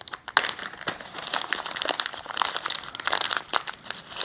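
Plastic packaging crinkling and rustling in quick, irregular crackles as the small parts of a door-latch kit are handled.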